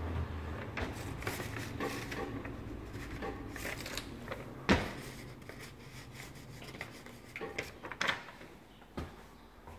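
Scattered knocks, clicks and rustling in a small room, with one sharp click about halfway through and a few more knocks near the end.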